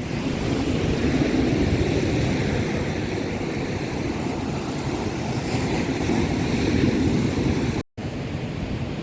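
Sea waves washing with wind buffeting the microphone, a steady rumbling noise. The sound drops out for a split second near the end.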